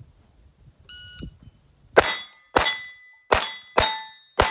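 Shot-timer beep, then about a second later five rimfire (.22) pistol shots about half a second apart. Each shot is followed by the ring of a steel target plate being hit.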